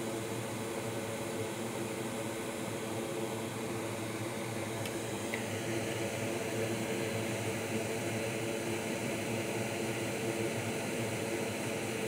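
Steady whirring hum and hiss of a fan running. A higher hiss swells in about five seconds in.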